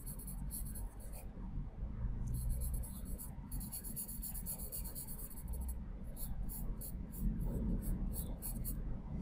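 Charcoal pencil scratching across layout paper in rapid back-and-forth shading strokes. The strokes come in clusters, with a long dense run in the middle and separate quick strokes near the end.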